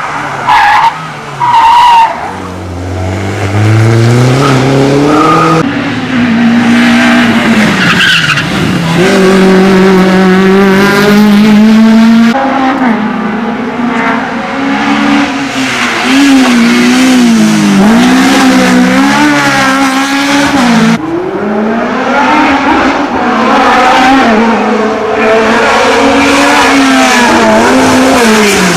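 Hillclimb race car driven hard, its engine rising and falling in pitch through repeated gear changes and lifts for the bends, with tyre squeal.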